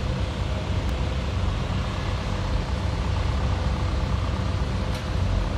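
Steady low rumble of heavy machinery running, with a constant hum over it and two faint ticks.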